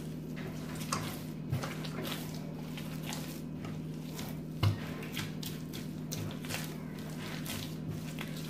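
Bread dough being kneaded by hand on a work surface: soft squishing and slapping as the palms press and fold it, with one louder knock a little past halfway. A steady low hum runs underneath.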